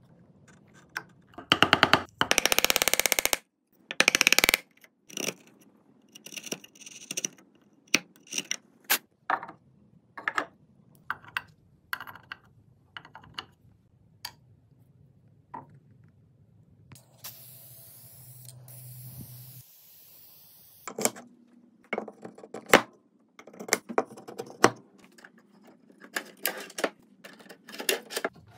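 Woodworking hand-tool sounds: a chisel paring and tapping in a wooden tray, and metal router collets clicking into their holes, with sharp clicks and knocks throughout. Two loud scraping bursts come a couple of seconds in, a steady hiss runs for a few seconds past the middle, and a drawer slides open near the end.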